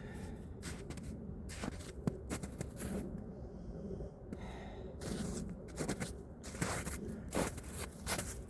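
A man's hard, irregular breathing and gasps from exertion on exercise bars, with rustling and scraping of layered clothing.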